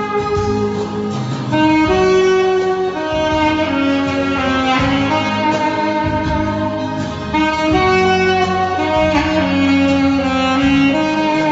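Saxophone playing a melody of held notes over a low accompaniment.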